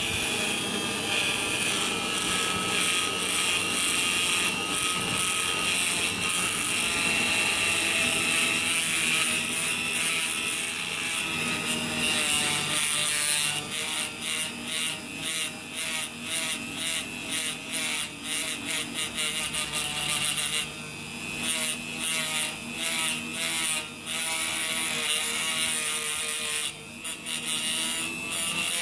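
HILDA JD3321C rotary tool running with a paste-loaded polishing disc, polishing a surface; a steady motor whine. About halfway through the sound turns uneven and choppy, with two brief drops.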